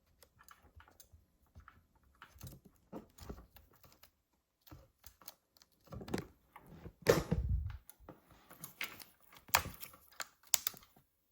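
Light, irregular clicks and taps of a MacBook Pro laptop being handled and its keys pressed, with a heavier low thump about seven seconds in and a few sharper clicks after it.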